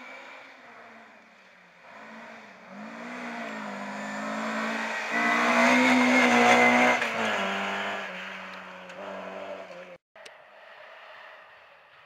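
Ford Escort Mk2 rally car's engine revving hard, its pitch rising and dipping as the revs climb and drop. It grows louder to a peak as the car passes, about six seconds in, then fades. After a brief cut about ten seconds in, a fainter car engine carries on.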